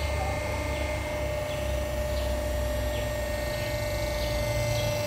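Hydraulic hose crimping machine running steadily during a crimp: a low hum with a steady whining tone from its pump and motor as the dies press a fitting onto the hose.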